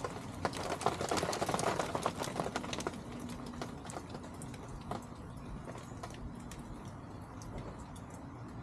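Chickens pecking at feed: a rapid run of sharp beak taps, densest in the first few seconds, then thinning out to scattered taps.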